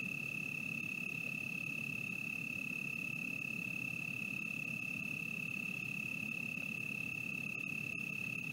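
A steady high-pitched tone that holds without a break or change in pitch, over a low, even rushing noise.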